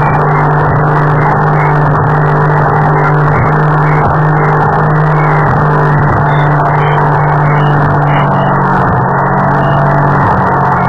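Speedboat engine running hard under way, a loud steady drone mixed with wind and water noise; the engine note drops a little about eight and a half seconds in.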